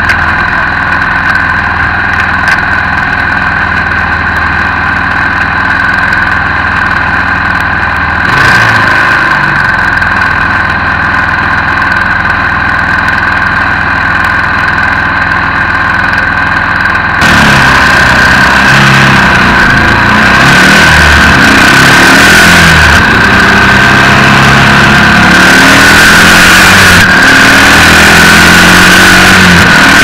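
Yamaha XT225's single-cylinder four-stroke engine idling steadily, then revving and changing pitch as the bike pulls away and rides off about halfway through, with loud wind noise on the microphone from then on.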